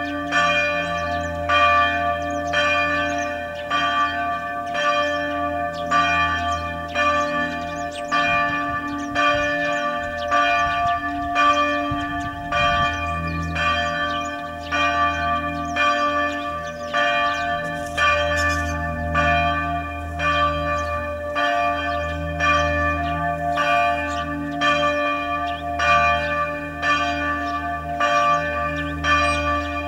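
Church bells ringing, struck over and over in a steady rhythm, their tones overlapping and ringing on between strokes.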